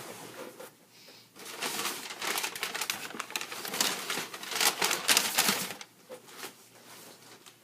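Packaging being handled as a large cardboard box is opened and unpacked: a few seconds of dense rustling and crinkling, starting about a second and a half in and fading near the end.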